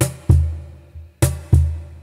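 Cajon played by hand in a steady groove, about three hits a second: deep booming bass strokes mixed with sharper slaps.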